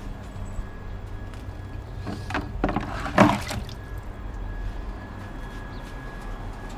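Water sloshing and splashing in a plastic bucket as it is scooped with a plastic dipper, loudest about three seconds in, over a steady low background hum.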